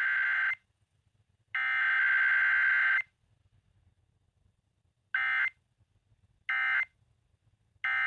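Emergency Alert System SAME data bursts playing from a Midland emergency weather radio: raspy, buzzy digital tone bursts. One ends just after the start, a longer one comes at about one and a half seconds, then three short, evenly spaced bursts near the end, the end-of-message code that closes the test.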